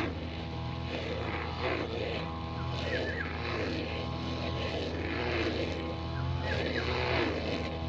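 Two-stroke brushcutter engine running at working speed, its note swelling and easing every second or two as it takes up and sheds load in the grass.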